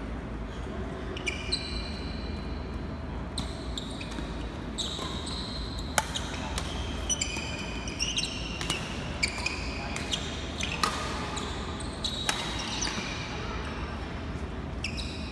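Badminton doubles rally on an indoor court: sharp racket strikes on the shuttlecock every second or two, and frequent short, high-pitched squeaks of court shoes on the floor, over a steady low hum.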